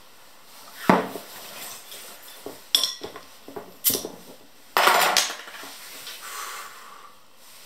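Glass bottles clinking and knocking while a corkscrew is worked into the cork of a wine bottle: a series of sharp clinks, with a longer scraping noise about five seconds in.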